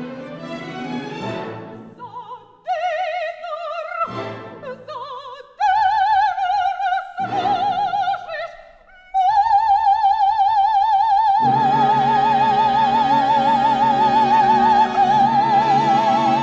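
Operatic music: a high voice with a wide vibrato sings short phrases with gaps between them, then holds one long note. A fuller orchestral accompaniment comes in underneath about two-thirds of the way through.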